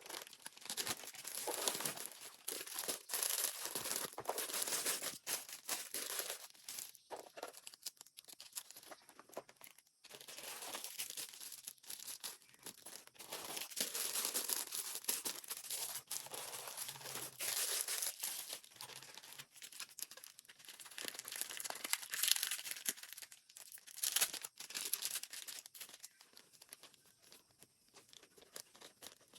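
Packaging crinkling and tearing by hand as a doll is unboxed, in irregular spells of crackling with short pauses, dying down near the end.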